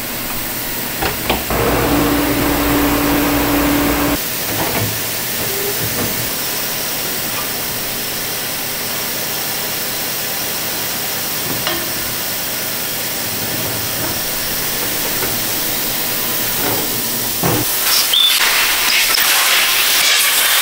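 Hand-held hot-water spray wand hissing steadily as it blasts a cast-iron Nissan RB26 engine block clean in a parts cleaner. A short steady hum comes in about two seconds in, and the spray gets louder and rougher near the end.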